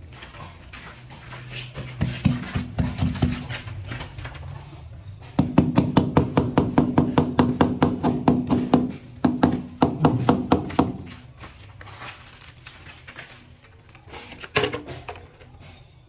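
Rubber mallet tapping a large ceramic wall tile to bed it into the mortar. It strikes in quick runs of about five taps a second, with a low ring under the taps, and one sharper knock near the end.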